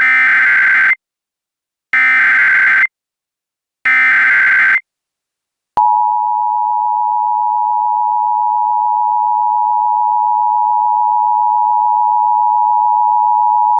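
Emergency Alert System tones: three short bursts of SAME header data warble, then the steady two-tone EAS attention signal (853 and 960 Hz) held for about eight seconds. This is the opening of an emergency alert broadcast.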